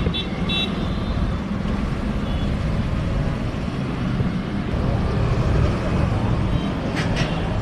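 Steady low rumble of motor vehicles running, with a few short clicks near the end.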